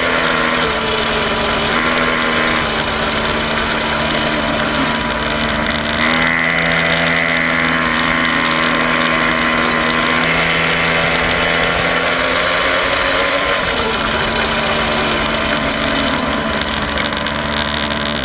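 Quad bike engine running, heard up close, its pitch stepping and gliding up and down with the throttle, with a falling glide a little past the middle.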